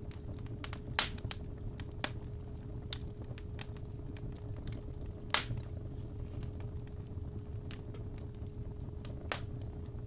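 Fireplace fire crackling with irregular sharp pops over a steady low rumble, under a steady 417 Hz sine tone. The loudest pops come about one second and about five seconds in.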